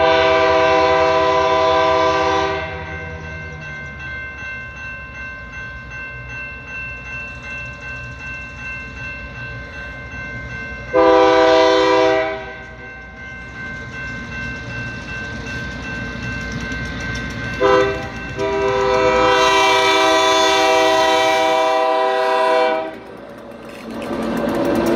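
Diesel freight locomotive sounding its horn for a grade crossing: a long blast, a shorter one, a brief toot and a final long blast, over the steady rumble of the engine and train. The crossing's warning bell rings throughout, and near the end the locomotives pass close by with a loud rush of engine and wheel noise.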